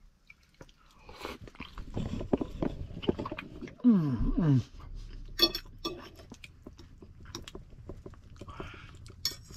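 A man chewing and eating a mouthful of creamy chicken and rice, with a short falling hum of enjoyment about four seconds in. A few sharp clicks follow in the second half.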